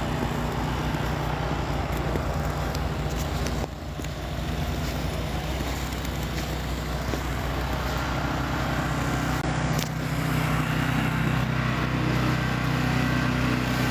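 A steady low motor hum under an even hiss.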